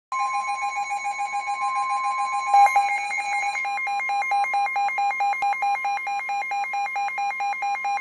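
Midland weather radio sounding a Severe Thunderstorm Warning alert: the steady weather-service warning alarm tone under the radio's own rapidly pulsing alarm beeps. About two and a half seconds in, the beeping switches to a louder, regular on-off beep, about three a second.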